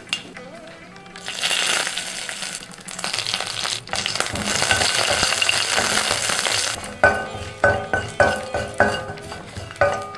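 Curry leaves and dried red chillies sizzling hard in hot coconut oil with mustard seeds and cumin, a loud hiss that starts about a second in and swells again around four seconds. From about seven seconds a wooden spatula knocks and scrapes against the steel pan in quick sautéing strokes, with the sizzle still under it.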